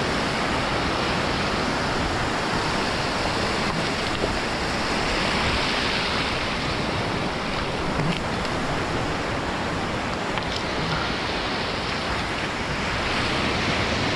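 Breaking surf and shallow foaming wash at the water's edge, a steady rush of waves.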